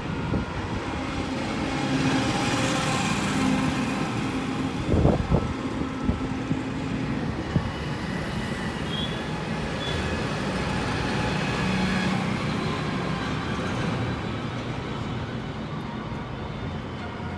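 Steady road traffic: motor vehicles passing with a continuous engine hum and tyre noise, and a brief knock about five seconds in.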